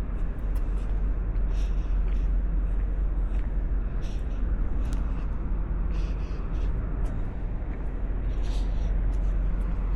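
Outdoor street ambience: a steady low rumble, with people's voices coming and going.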